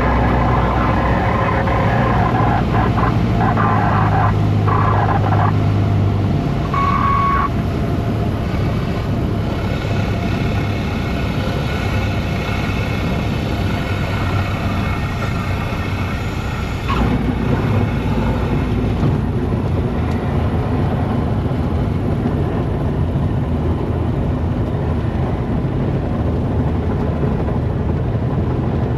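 Cessna 150's four-cylinder piston engine and propeller running steadily, heard from inside the cabin, with the engine note changing about 17 seconds in.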